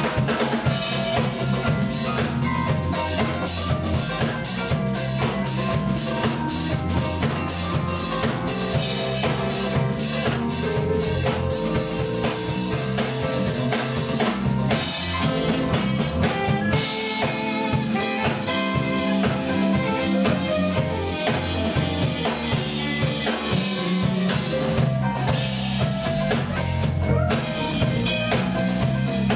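Live band playing: drum kit keeping a steady beat with snare and bass drum, under electric bass, electric guitar, keyboard and saxophone.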